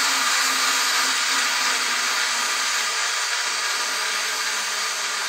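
The Hasbro Vintage Collection AT-AT toy's winch sound feature, set off by pressing on top of the model: a loud, steady hissing whir, a weird sound.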